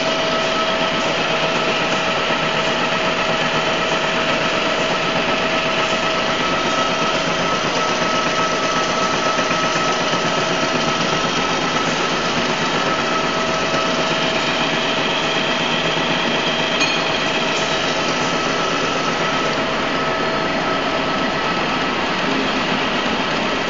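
Workshop machinery running steadily: a constant mechanical hum with a steady pitched whine that does not change.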